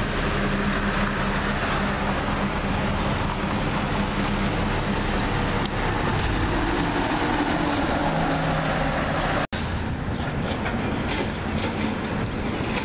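Heavy garbage trucks and other traffic driving past on a street: steady engine and tyre noise, with a low engine hum that shifts as a truck passes. About nine and a half seconds in the sound cuts briefly and comes back as quieter traffic noise.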